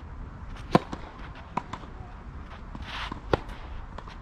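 Tennis ball struck hard by a racket on a serve a little under a second in, then the lighter bounces and hits of a rally on a clay court, with a short scrape and another hard racket hit about three seconds in.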